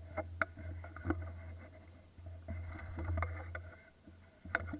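Leaves and branches rustling and brushing against a gun-mounted camera while someone walks through dense undergrowth, with sharp snaps and footfalls on the forest floor, the loudest about half a second in and near the end. A low steady rumble of handling noise runs underneath.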